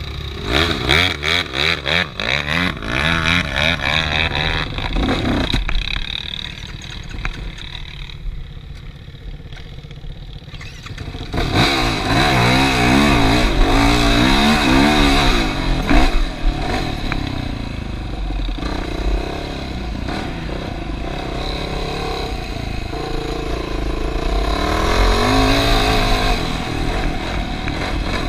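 ATV engine revving up and down as the quad is ridden, dropping back for a few seconds in the middle and then opening up again.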